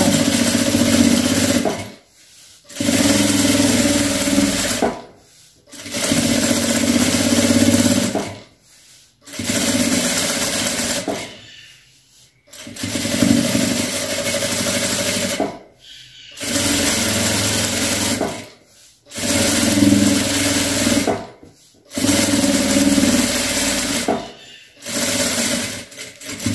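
Sewing machine stitching a seam through a patchwork top and its heavy lining, running in short bursts of two to three seconds and stopping briefly about eight times while the fabric is straightened between runs.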